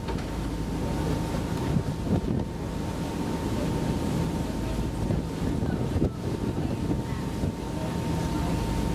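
Passenger ferry's engines running with a steady low drone, wind buffeting the microphone, and a faint steady high whine over it.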